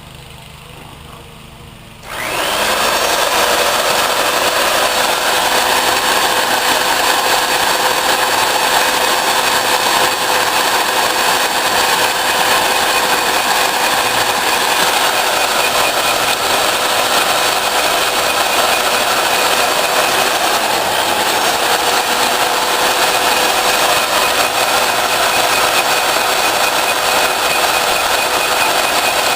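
Portable line-boring bar driven by a 3/4-inch electric drill motor, switched on about two seconds in and then running steadily as it bores out an excavator pin hole.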